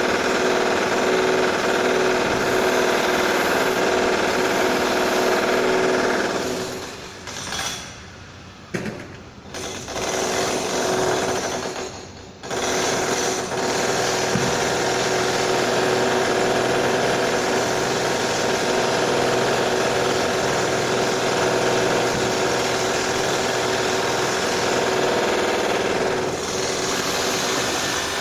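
Renovation drilling: a power drill running steadily under load. It winds down about six seconds in, runs only in short spurts for a few seconds, and starts up again at full speed around twelve seconds.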